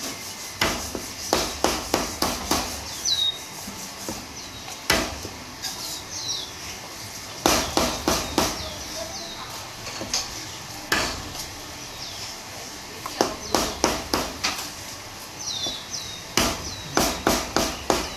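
Meat cleaver chopping roast chicken on a round wooden chopping board: clusters of quick, sharp chops, several strokes at a time with short pauses between. Small birds chirp now and then behind the chopping.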